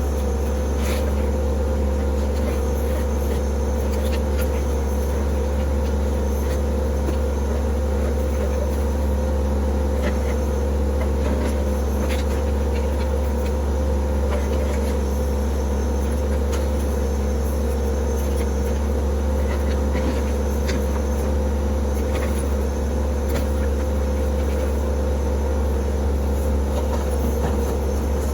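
TYM T264 compact tractor's diesel engine running steadily, with scattered light clicks and knocks over it.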